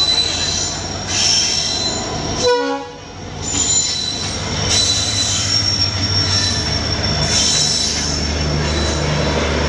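WDP4D diesel locomotive of an arriving express train running past close by, with a low engine rumble and steady high-pitched wheel and brake squeal as it slows into the station. The engine rumble grows louder near the end as the locomotive draws level.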